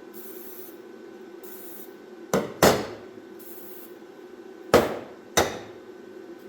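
A hammer striking metal four times, in two quick pairs, each blow ringing briefly, over a steady low hum.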